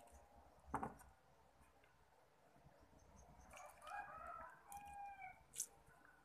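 A faint rooster crowing, a call that rises and falls for about two seconds, starting about three and a half seconds in, against near silence. A sharp knock about a second in and a short click near the end.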